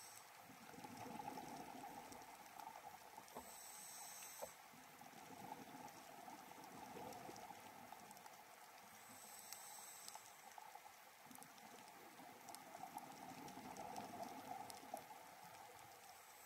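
Scuba diver breathing through a regulator, heard faintly through an underwater camera housing: two short hissing inhalations about five seconds apart, with longer bursts of bubbling exhalation between them.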